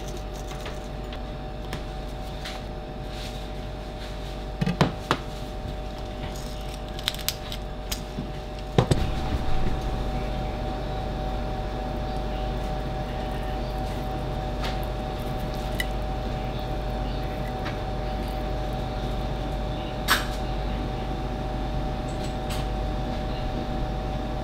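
A steady hum runs throughout, with a few light clinks and knocks of a fork against a plate, the loudest about nine seconds in and another near twenty seconds.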